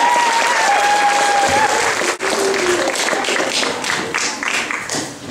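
Audience applauding and clapping, dying down toward the end, with the last held note of a group of singers fading out about a second and a half in.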